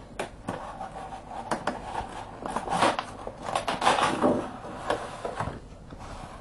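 Handling of the packaging of Lavazza A Modo Mio coffee pods: rustling with a run of small clicks and knocks, busiest in the middle.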